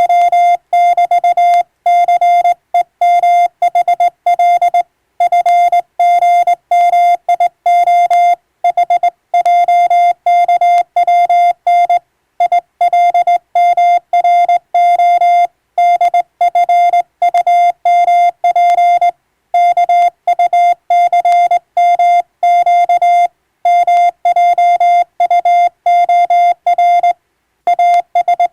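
Morse code (CW) sent as a single keyed tone: rapid dots and dashes in quick succession, broken every few seconds by slightly longer gaps between words.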